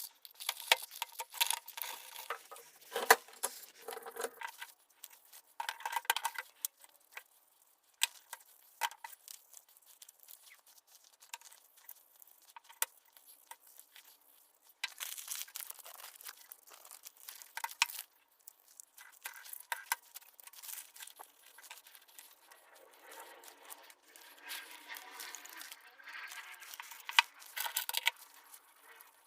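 Irregular clicks, light knocks and scraping or rustling from hands working on small parts and tools, with no motor running.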